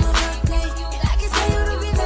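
Background music: a song with a steady beat and deep bass.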